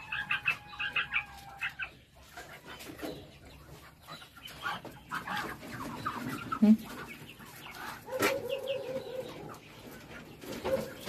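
Chickens clucking in a cage: a quick run of short repeated calls at first, then scattered calls with occasional knocks.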